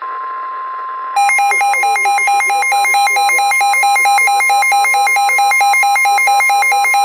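NOAA Weather Radio's steady 1050 Hz warning alarm tone. About a second in, a Midland WR-120 weather radio's own loud, rapidly pulsing electronic alert starts over it, signalling an incoming severe thunderstorm warning.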